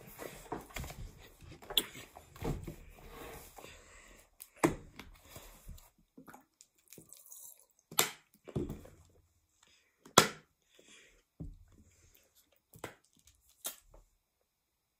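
A small plastic water bottle with a flip-up cap being handled and drunk from: rustling at first, then several separate sharp clicks and knocks, with sips of water.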